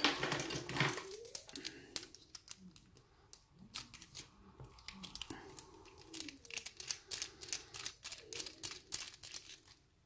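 Irregular small clicks and taps of a metal tool working at the body of an American Lock 1100 aluminium padlock as the lock is handled to be taken apart.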